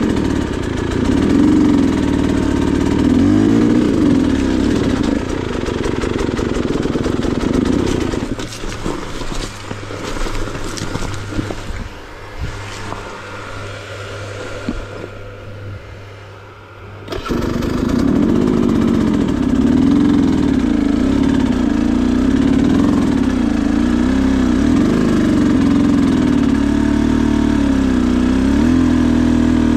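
Dirt bike engine running at low revs on a slow trail climb, its pitch rising and falling with small throttle changes. About a third of the way in it drops much quieter for several seconds, with a few clicks, then comes back abruptly and runs on.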